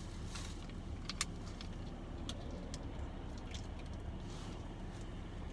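Steady low rumble of a car cabin, with a few faint clicks and a brief soft rustle as a sandwich is put together.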